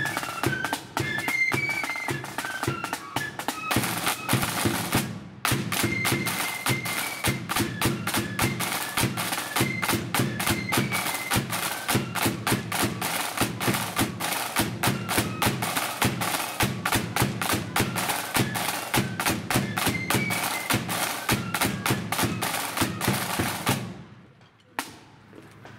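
Marching flute band playing a tune, a high flute melody over rapid snare-drum rolls and a steady bass drum. The music stops abruptly about two seconds before the end, followed by a single hit.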